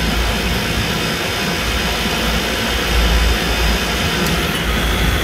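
Refrigeration rack compressors and their condenser fans running steadily, a dense even noise with an uneven low rumble underneath.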